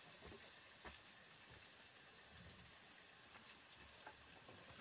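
Pork fat sizzling faintly in a small frying pan over a wood fire, a steady hiss with a few faint ticks.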